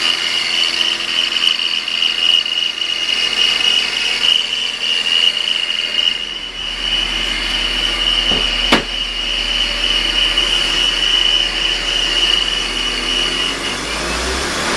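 2000 BMW 528i's straight-six running with a steady high-pitched whine from the accessory belt drive, the noise of a worn idler pulley. The whine stops shortly before the end, and there is a single sharp click a little past the middle.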